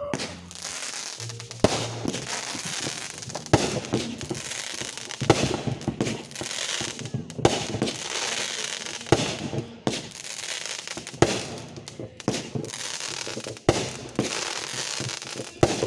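Aerial fireworks going off: a sharp bang about every two seconds, with a rush of noise between the bangs.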